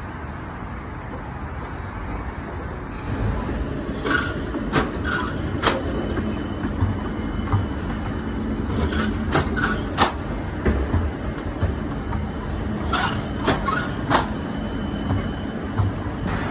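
Light rail tram (CAF Urbos) rolling past close by with a steady low rumble and hum, which swells about three seconds in. Clusters of sharp clacks come from the wheels on the track as it passes.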